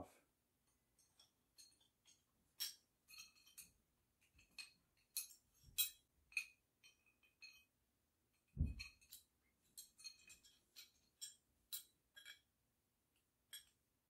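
Faint, irregular clinks and light clicks of small metal hose fittings and a filter being handled and unscrewed, with one dull thump about two-thirds of the way through.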